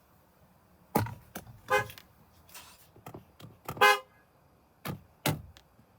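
Car horn honking in a few short toots, with a couple of short clicks near the end.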